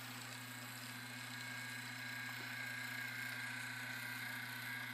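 HO-scale DCC model diesel locomotives running along the track, their electric motors giving a steady whine over a constant low hum.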